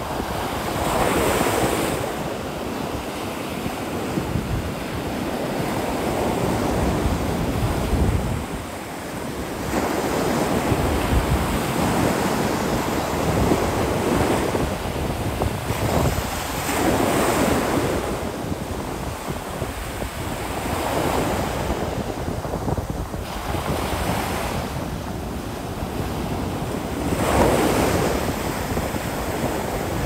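Ocean surf on a sandy beach: small waves breaking and washing up the shore, swelling louder every few seconds, with wind rumbling on the microphone.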